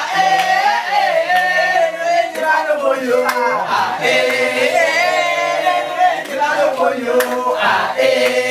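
A group of men and women singing a song together, with a few short sharp hits among the voices.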